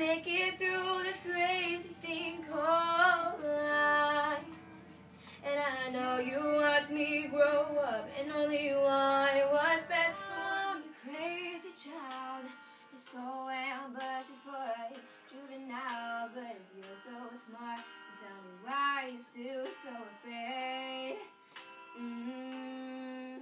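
A girl singing a song, with held notes.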